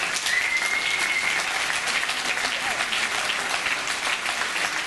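A small crowd applauding, with dense, steady clapping, and a short whistle about a quarter of a second in.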